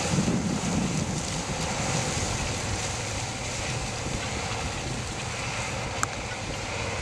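Case IH Steiger 350HD four-wheel-drive tractor running steadily under load while pulling a Case IH 330 Turbo tillage tool through the soil, with wind buffeting the microphone. A short click about six seconds in.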